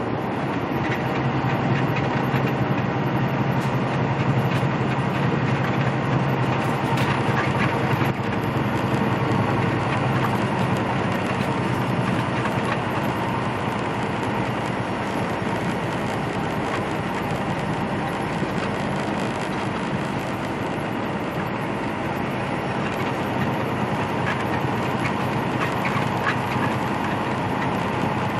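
Steady cab noise of a semi-truck cruising on the highway: a diesel engine drone mixed with tyre and wind noise. The engine hum is a little stronger for the first dozen seconds, then eases.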